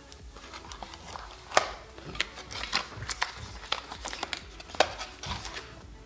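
A small cardboard box and its folded paper leaflet being pulled open and handled: irregular crinkling and rustling with small snaps of card, the loudest about a second and a half in and again near the end.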